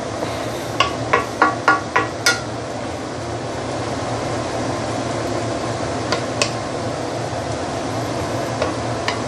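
Wooden spatula knocking and scraping against a stainless steel frying pan while stirring wet noodles in broth: a quick run of about six taps in the first two seconds or so, and a few more later, over a steady hiss.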